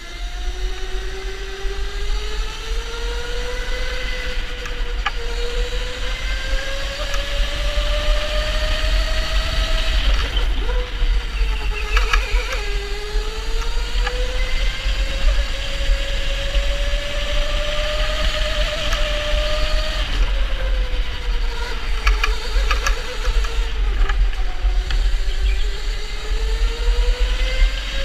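Electric go-kart's motor whining, heard from on board. The pitch climbs along the straights and dips twice as the kart slows for corners, over a steady low rumble, with a few brief rattling clicks around the dips.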